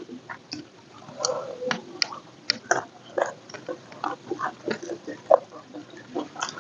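Close-miked chewing of a person eating a rice meal, with irregular short mouth smacks and clicks.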